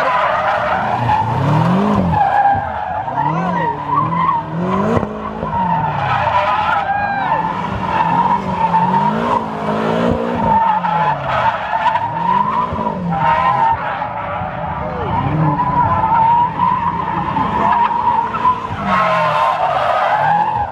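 Car drifting: the engine revs rise and fall over and over, about every second and a half, as the throttle is worked. The tyres squeal almost continuously through the slide.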